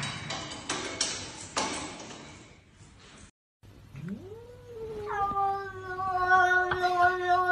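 A cat's long drawn-out meow, rising at the start and then held level for about three seconds, in the second half. Before it comes a quick run of sharp taps.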